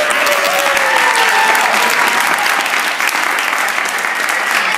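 Audience applauding loudly, dense clapping with a few voices calling out over it.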